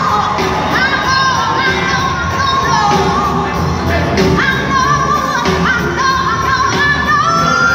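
Live blues-rock band playing at full volume, with a woman singing the lead melody in long, sliding held notes over the band.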